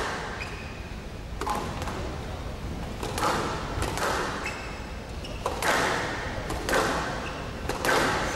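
Squash rally on a glass-walled court: the ball is struck by rackets and hits the walls with sharp thuds about once a second, echoing in a large hall.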